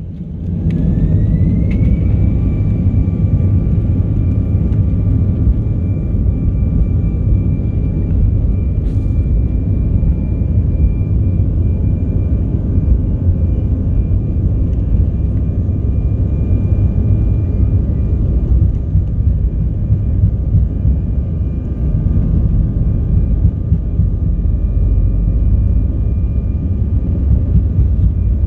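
Airbus A319's jet engines heard from inside the cabin, spooling up to take-off power: a whine that rises over the first couple of seconds and then holds at a steady high pitch, over a heavy, steady rumble through the take-off roll.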